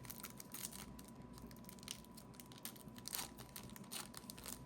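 Faint crinkling and rustling of a foil trading-card pack wrapper and cards being handled as a pack is opened, in many small irregular crackles.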